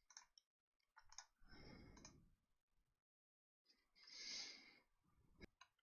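Near silence, with a few faint clicks near the start, about a second in and near the end, and two soft breaths between them.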